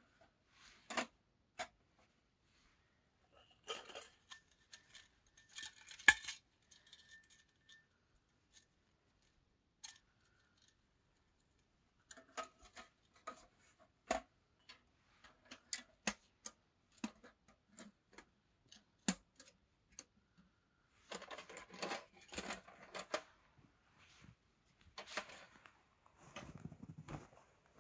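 Camping gear being packed up by hand: scattered clinks and knocks of small metal items with short stretches of rustling.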